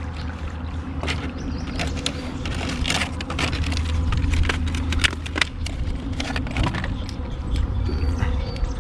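A kayak on the move on a river: scattered irregular knocks and clicks, as of a paddle and gear against the hull, over a steady low rumble of water and wind.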